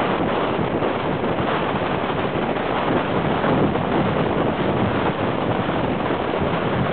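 Wind rushing over the microphone of a camera carried on a moving road bicycle, a steady rush of noise.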